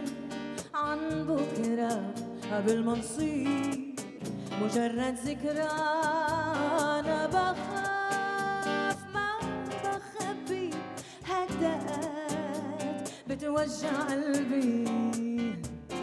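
A song: acoustic guitar played under a sung melody, the voice holding long notes with vibrato.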